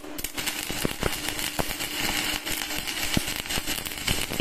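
Stick (MMA) welding arc from a thick 10-gauge electrode on a steel plate, fed by a Bridge 200 MMA mini DC inverter welder: the arc strikes, then crackles and sputters steadily with frequent sharp pops over a steady low hum. A 10-gauge rod is at the top of this small machine's range, which is meant for 12 and 14-gauge rods.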